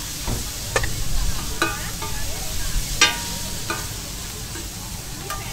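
Pad thai frying on a large flat metal griddle pan, sizzling steadily while a metal spatula scrapes and strikes the pan. About five ringing clanks stand out, the loudest about three seconds in.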